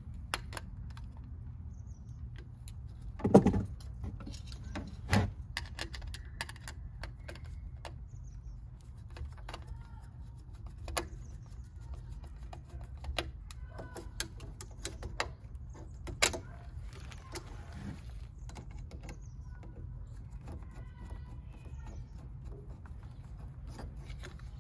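Scattered clicks and taps of a screwdriver and hands working a wire under the terminal screw of a cheap plastic lamp socket, with a louder knock about three seconds in, over a steady low hum.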